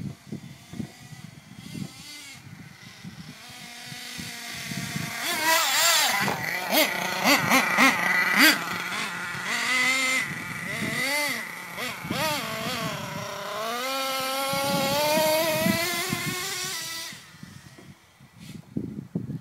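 HPI Savage X 4.6 nitro RC truck's small two-stroke glow engine with an LRP exhaust, revving up and down over and over, its pitch rising and falling. It grows louder over the first few seconds, is loudest about six to nine seconds in, and dies away about seventeen seconds in.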